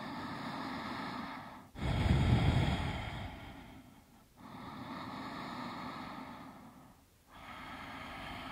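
A woman breathing slowly and deeply, close to the microphone: four long breath sounds with short pauses between them, the second, about two seconds in, the loudest.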